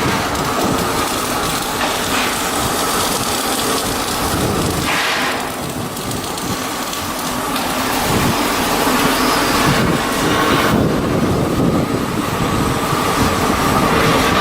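Steady machinery noise with a faint steady hum, a brief hiss about five seconds in, and getting a little louder from about eight seconds.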